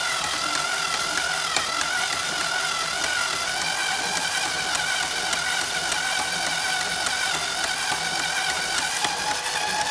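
Electric screwdriver motor running steadily with a high whine as it spins a 4-inch PVC pipe. Over it is the hiss of 220-grit sandpaper rubbed by hand against the turning pipe.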